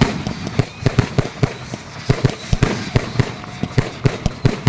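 Fireworks going off in quick, irregular succession: sharp bangs several times a second, some louder than others.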